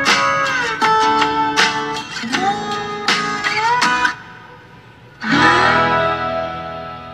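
Guitar music with sliding, bent notes, played through speakers driven by a TPA3110D2 class-D amplifier module. It cuts off suddenly about four seconds in and comes back about a second later with one loud note that slowly fades.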